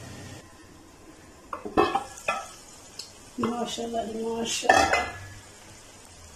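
Metal cooking-pot lid being handled and taken off the pot: a few sharp metal clanks, then a ringing metal scrape of about a second and another clank near the middle.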